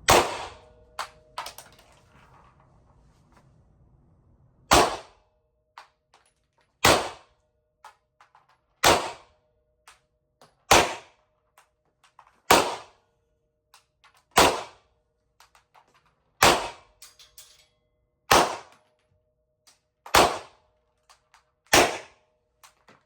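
Glock 17 9mm pistol firing single shots in a slow, steady string: one shot, a pause of about four seconds, then ten more about two seconds apart, each with a short echo.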